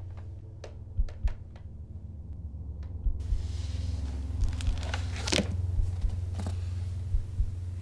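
Soundtrack of a steady low droning hum with soft low thumps, mostly in pairs, every second or two. A brief rustle comes about five seconds in.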